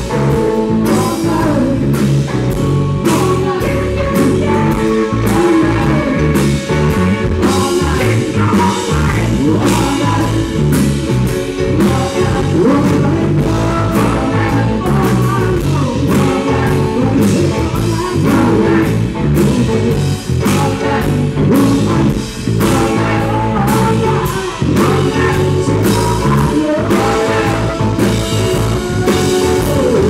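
Live rock band playing a blues-rock number on electric guitars, bass, keyboards and two drum kits, with a steady beat.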